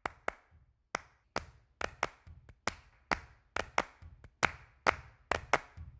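Hand claps keeping a rhythmic beat: sharp single claps, about two to three a second, some in quick pairs, each with a short echo.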